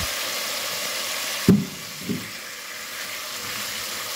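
Oil sizzling steadily in a pot as chunks of taro fry with chopped garlic. There is a sharp knock about a second and a half in, the loudest moment, then a lighter one just after, and the sizzle is a little quieter afterwards.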